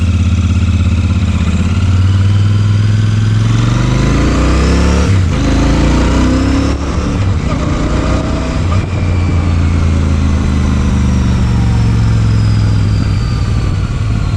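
Royal Enfield Super Meteor 650's 648 cc twin-cylinder engine through its stock dual exhausts, pulling away under load. The engine note climbs, drops briefly about five seconds in, climbs again, and then falls off near the end as the throttle eases.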